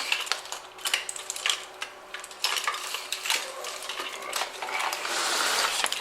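Connectors and wires of an old Fox-body Mustang wiring harness clicking and clattering as it is handled and sorted, with a denser rustling scrape about five seconds in.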